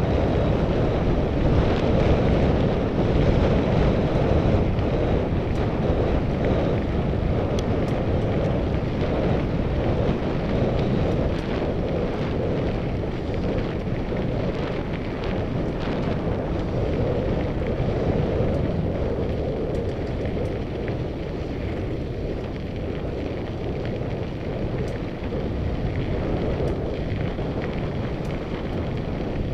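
Wind buffeting a helmet camera's microphone on a moving mountain bike: a steady rough rush, with scattered small clicks and rattles from the bike on the dirt trail.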